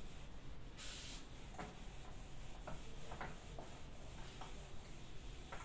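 Faint rubbing of a handheld duster wiped across a whiteboard, erasing marker writing: a brief hissy stroke about a second in, then a string of short scuffs.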